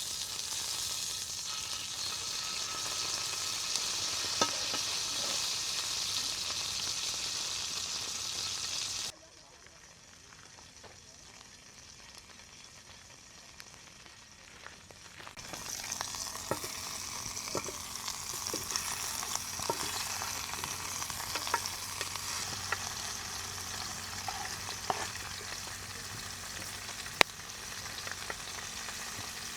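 Food sizzling in a pan, a steady hiss with scattered small pops. It cuts off abruptly about a third of the way in, stays much quieter for several seconds, then the sizzling comes back with frequent small ticks and pops.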